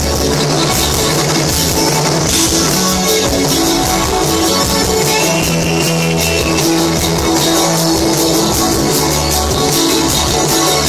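Live rock band playing loudly: electric guitar over a steadily beating drum kit, amplified through a club PA and heard from within the crowd.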